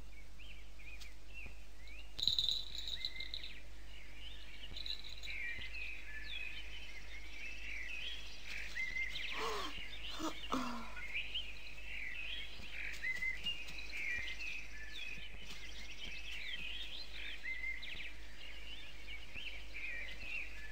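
Forest ambience of many small birds chirping and twittering, with short calls coming one after another. A brief louder sound about two seconds in, and two short sounds falling in pitch around ten seconds in.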